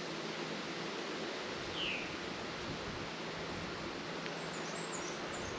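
Steady outdoor background hiss, with one short falling bird chirp about two seconds in and a few high, quick bird twitters near the end.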